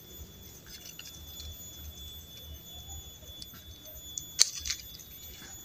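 Bypass pruning shears snipping through a woody grapevine cane: one sharp snip about four seconds in, followed by a couple of fainter clicks.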